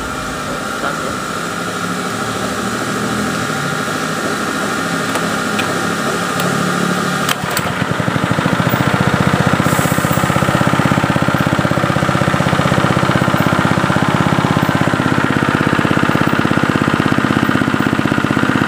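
Honda GX120 single-cylinder four-stroke engine running while it burns off petrol that flooded the combustion chamber through a leaking carburettor float needle. About seven seconds in there is a click, and then the engine runs louder with an even, rapid beat.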